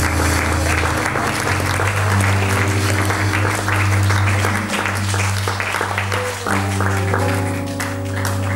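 Audience applauding over live music: held low notes and chords that shift a few times under the clapping.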